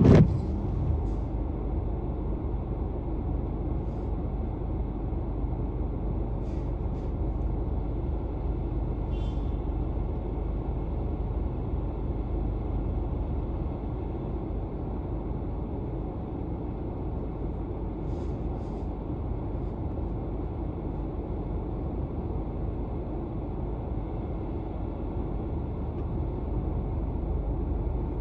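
Steady low rumble of a car driving on city streets, engine and road noise, with a short thump at the start and a few faint clicks.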